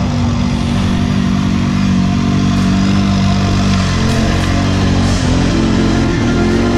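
ATV engine running at a steady speed, then revving up and down several times in the second half as the throttle is worked.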